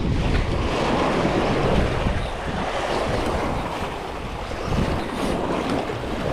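Sea surf washing against the jetty, with wind buffeting the microphone more heavily in the first couple of seconds.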